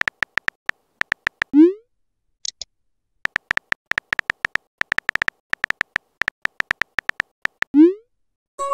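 Phone keyboard typing sound effects: rapid short clicky beeps, one per key, in two runs. Each run ends in a short rising swoosh as a message is sent, about a second and a half in and again near the end, with a faint double blip around two and a half seconds in.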